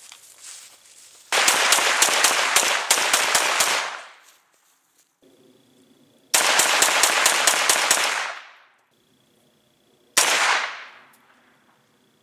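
PSA AKV 9mm pistol fired in rapid semi-automatic strings: a quick run of shots about a second in lasting over two seconds, a second run around six seconds in, and a single shot near ten seconds, each trailing off in echo.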